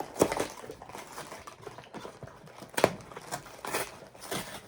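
Plastic snack wrapper crinkling and rustling as it is handled and opened, with a sharp click or knock nearly three seconds in.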